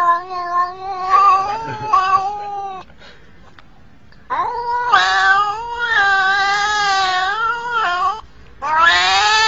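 A domestic cat yowling: three long, wavering, drawn-out yowls of a few seconds each, with short pauses between them.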